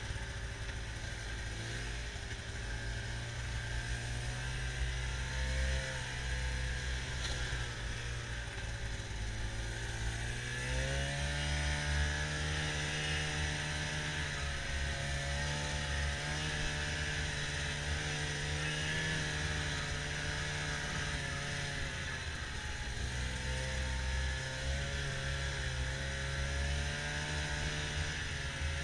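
Snowmobile engine running under way on a trail, its pitch rising about ten seconds in as the sled speeds up, easing off briefly and picking up again later.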